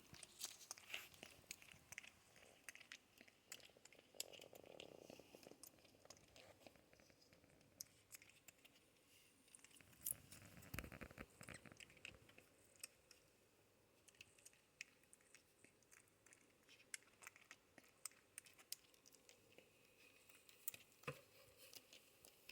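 Near silence with faint scattered clicks and soft rustling from a baby porcupine, and a short run of louder clicks about ten seconds in.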